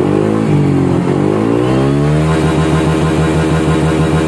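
Honda Vario 150 scooter's single-cylinder engine revved at full throttle on the centre stand through a gutted (bobok) muffler with a new neck pipe and a homemade filter meant to keep the note deep and mellow. The revs dip briefly, climb over about a second, then hold steady at the top of the range.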